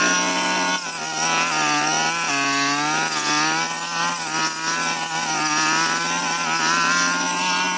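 Petrol brush cutter engine running at high revs, its pitch dipping briefly every so often as the blade bites into thick brush.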